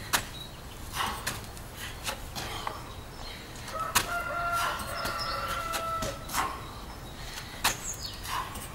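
A man doing burpees on gravel: hard, sharp exhales about every second, with scuffs of hands and feet on the ground. From about four seconds in, a steady pitched call holds for about two seconds in the background.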